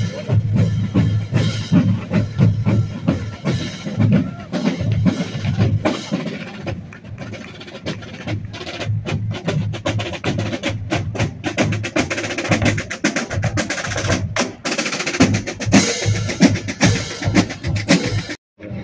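Marching band drumline playing a cadence: rapid snare-drum strokes and rolls over heavy bass-drum beats. The drumming breaks off abruptly for a moment near the end.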